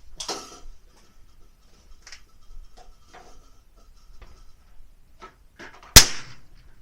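A single shot from a Ruger Precision rimfire rifle firing 22LR subsonic ammunition about six seconds in: one sharp report with a short trailing echo. Before it come a few faint clicks.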